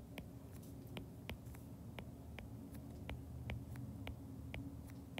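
Faint, irregular clicks of a stylus tip tapping on an iPad's glass screen while handwriting numbers, about three a second, over a faint low steady hum.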